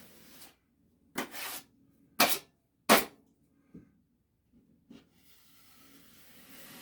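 Three sharp scrapes or clacks of drywall finishing tools during joint-compound work, about a second apart, each dying away quickly, followed by a soft hiss near the end.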